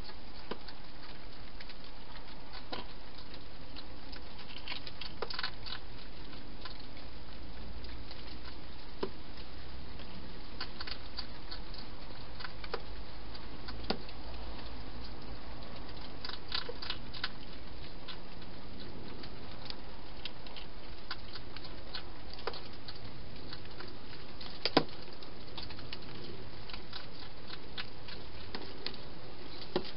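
Wild hedgehog eating from a bowl inside a plastic feeding box: irregular little clicks and crunches, some in quick clusters, over a steady hiss, with one sharper click about three-quarters of the way in.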